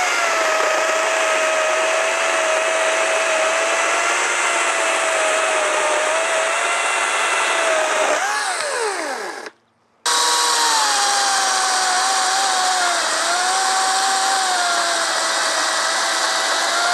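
EGO CS1400E 56-volt brushless battery chainsaw cutting through a six-inch log with a steady electric whine. About eight seconds in, the motor winds down with a falling whine. After a brief silence, a second 14-inch battery chainsaw, a STIGA, cuts the same size log, and its whine sags in pitch under load.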